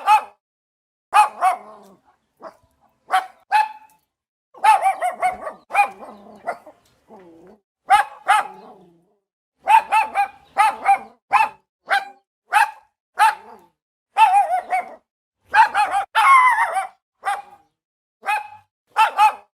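Boston Terrier barking over and over in short, sharp barks, some single and some in quick runs, with a longer stretch of overlapping barks and yelps about five seconds in and again near the end.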